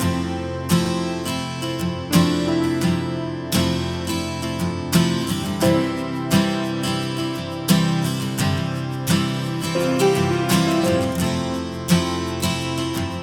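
Background music led by strummed and plucked acoustic guitar, with a steady rhythm.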